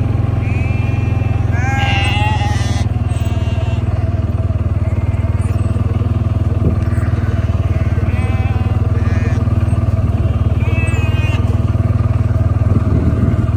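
Sheep bleating, a handful of separate calls, the loudest about two seconds in, over the steady running of a small engine.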